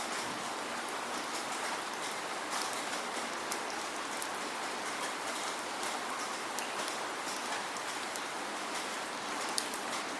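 Steady rain falling, with individual drops pattering in scattered sharp ticks over an even hiss; no thunder.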